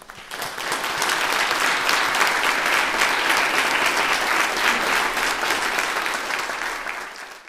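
Audience applauding. It swells up in the first second, holds steady, then tapers off near the end and cuts off.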